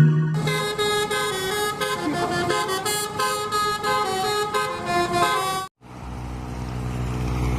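Basuri telolet bus horn, a multi-tone horn, playing a quick tune of changing notes for about five seconds before cutting off abruptly. A vehicle engine follows, running and starting to rise in pitch near the end.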